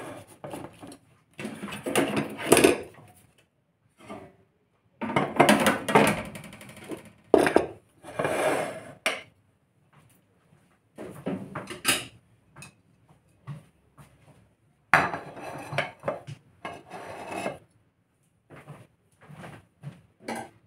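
Dishes being handled and set down on a table: irregular clatters, knocks and scrapes of serving trays and a china plate, some with a brief ring.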